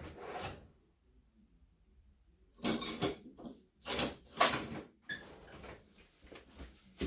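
Someone rummaging for a pair of needle-nose pliers off to the side: a few short clattering, scraping noises, the loudest about four seconds in, with quiet shuffling between them.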